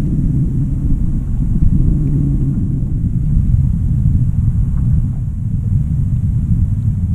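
Wind buffeting the camera's microphone: a steady, unevenly fluctuating low rumble.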